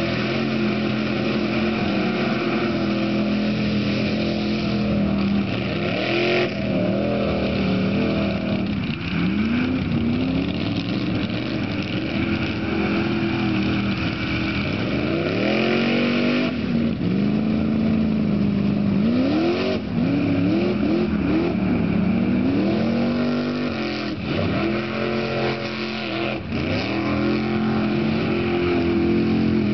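Off-road truck engine running hard in a mud bog, held fairly steady at first. From about eight seconds in it is revved up and down over and over as the throttle is worked.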